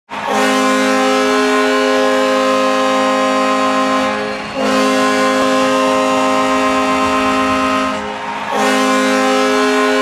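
Ice hockey arena goal horn for the Danbury Hat Tricks, sounding in three long, loud blasts of a few seconds each with short breaks between. This is the horn that signals a home-team goal.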